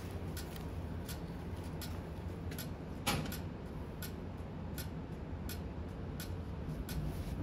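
Motorcycle engine idling with a steady low hum, with scattered light ticks and clicks over it and one sharper click about three seconds in.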